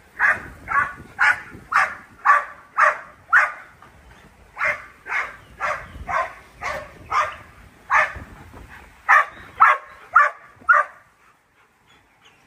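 A dog barking repeatedly during play, about two short barks a second, with a brief pause about four seconds in. The barking stops about eleven seconds in.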